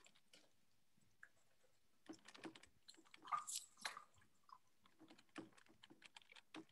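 Faint, irregular clicking of computer keyboard keys as someone types, picked up over a video call.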